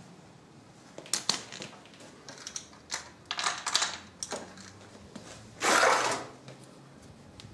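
Light metallic clicks and clinks of small metal parts and hand tools being handled, scattered through the first four seconds or so, with a short, louder rush of noise about six seconds in.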